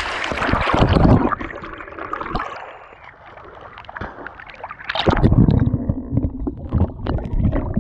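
Water splashing and sloshing as a person swims in a river, with the action camera held at the waterline. Heavy splashing in the first second, a quieter lull, then more churning water from about five seconds in.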